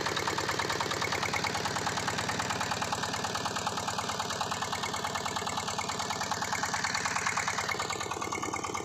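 A boat's engine running steadily as the boat travels, with a rapid, even pulsing beat.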